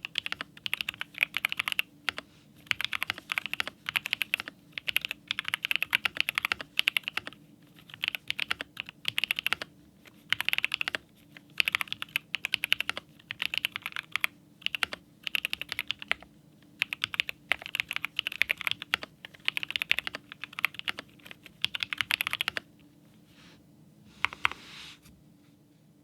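Typing on a Keychron Lemokey P1 mechanical keyboard fitted with NovelKeys Cream switches: runs of quick keystrokes with short pauses between them, stopping a few seconds before the end after a couple of last presses.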